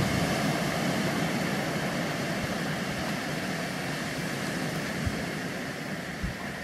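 Small surf breaking and washing up a pebble beach, a steady hiss that eases off slowly, with a few low thumps of wind on the microphone.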